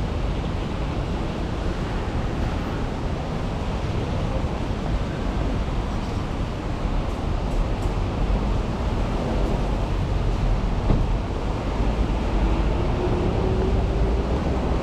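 Steady rumbling street noise of a rainy city walk, rain hiss and road traffic blended into one continuous wash. A faint rising whine comes in about twelve seconds in.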